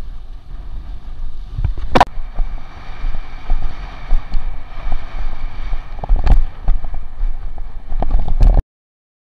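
Wind buffeting an action camera's microphone and water rushing past a windsurf board planing over chop, with sharp slaps as the board hits the waves, the loudest about two seconds in. The sound cuts off abruptly to silence near the end.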